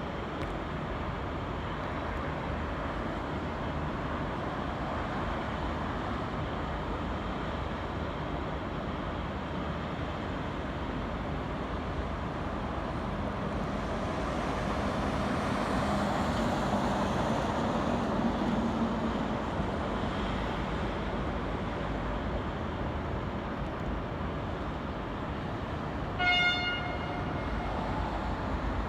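Diesel locomotives on a passing train: a steady rumble of engines and wheels that grows louder to a peak about halfway, with a low engine drone, then eases off. Near the end the locomotive's Nathan P5 horn gives one short toot, the loudest sound.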